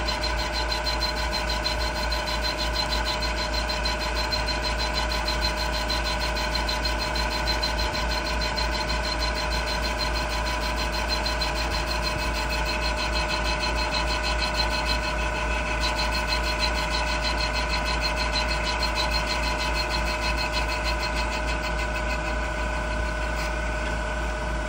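Vertical milling machine's end mill cutting a Mold-Star 90 offset valve seat on a rotary table: a steady whine with a fast, even rattle through it. The rattle is the interrupted cut, the cutter's teeth striking the seat because it is thicker on one side than the other.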